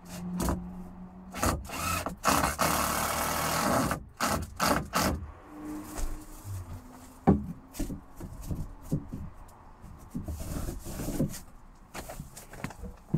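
Timber batten being handled and fitted into a wooden roof frame: repeated knocks of wood on wood, with a longer rough scrape of timber rubbing on timber about two seconds in.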